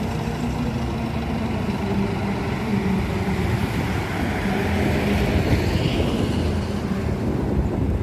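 Diesel engines of Scania tour coaches running at low speed as they move off and pass by, a steady low engine sound with no horn.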